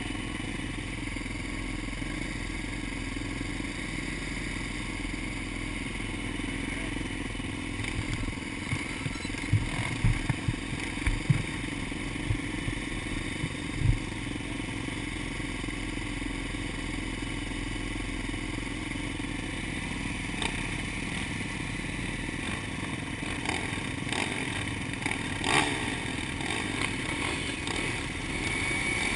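Dirt bike engines idling steadily while the bikes stand waiting, with a few dull thumps around the middle.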